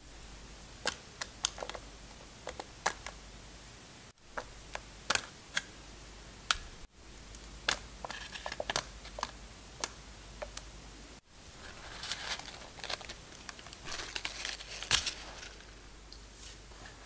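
Soft, irregular clicks and paper crinkling as dark chocolate pieces are set by hand onto muffin batter in paper tulip liners. A denser run of crinkling comes a few seconds before the end.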